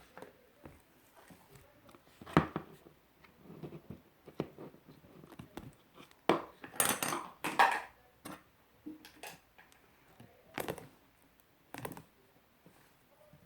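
Fluffy shaving-foam slime being handled and worked by hand: irregular sticky squishes, crackles and small pops. There are a few louder bursts, about two seconds in, around the middle, and a couple of seconds later.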